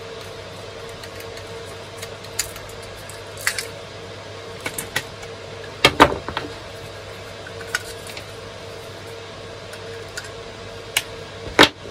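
Scattered clicks and taps of small plastic parts handled and screwed apart, with sharp knocks about six seconds in and just before the end, as a screwdriver and the plastic sensor housing are knocked or set down on the wooden bench. A steady hum from computer servers runs underneath.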